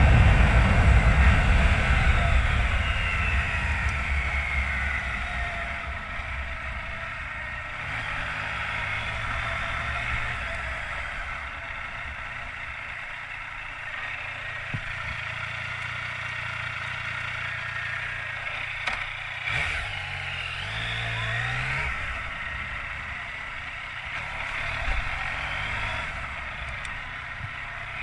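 Yamaha Tracer 900's three-cylinder engine under way, with road and wind noise. The engine is loudest at first and falls away over the first few seconds, then rises in pitch about twenty seconds in as it accelerates.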